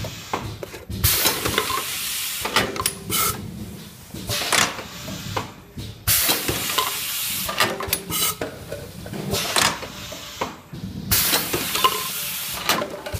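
B.GF-401 automatic tube filling and sealing machine running: metal clicks and knocks from its indexing turntable and stations, with three long bursts of air hiss about five seconds apart.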